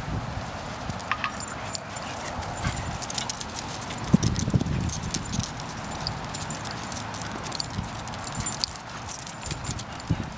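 A Saluki and a German Shepherd play-wrestling on grass: scuffling, with irregular thumps of paws and bodies. The sharpest thump comes about four seconds in.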